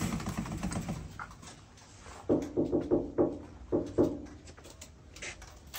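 A dog barking: a quick run of short barks a little over two seconds in, then a couple more about a second later.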